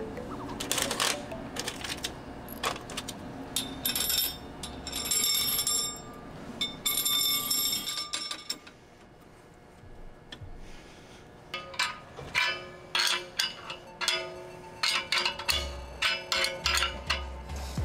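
Stainless-steel filter plates and frame of a Nihon Rosuiki multi-stage horizontal filter-plate filter clinking and ringing as they are handled by hand. The knocks ring for a moment, there is a lull in the middle, and then a quick run of clinks comes near the end.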